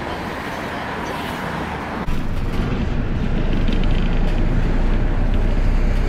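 Street traffic: a steady noise of car engines and tyres on a wide city road. About two seconds in it turns suddenly louder, with a heavier low rumble.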